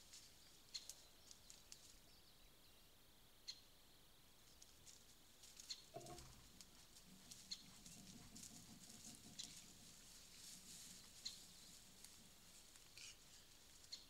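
Wild boar piglets squeaking and grunting, faint: short high squeaks scattered throughout, a low grunt about six seconds in, then a few seconds of low grunting.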